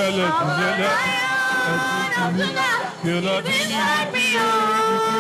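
A male worship leader sings the word "roar" over backing music, followed by long held sung notes and melodic runs with no further words.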